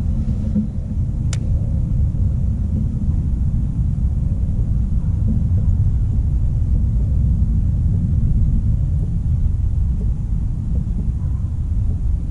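Steady low rumble of outdoor background noise, with a single sharp click about a second in.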